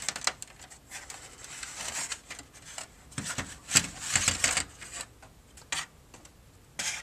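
Handling noise from a model U-boat being moved and turned: scattered light clicks and short rubbing, scraping sounds, the busiest stretch about three to four and a half seconds in.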